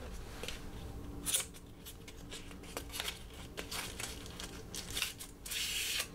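Handling of slim cardboard bit boxes: a few light taps and clicks, then a cardboard sleeve slid off a plastic bit tube with a scraping rustle near the end.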